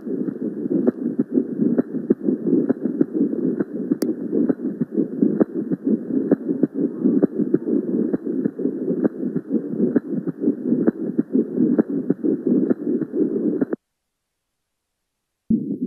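Recorded pericardial friction rub: a rough, noisy rubbing that repeats in an even rhythm with the heartbeat. It is thought to come from the inflamed visceral and parietal layers of the pericardium rubbing together. It cuts off suddenly about 14 seconds in, and another heart-sound recording starts just before the end.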